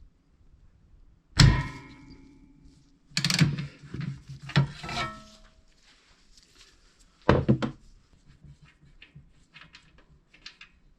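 Tools knocking against the metal of a petrol pressure washer's engine while the oil drain bolt is undone with a ratchet. A loud sharp knock with a brief metallic ring comes about a second and a half in, then a cluster of knocks, one more about seven seconds in, and light ticking after.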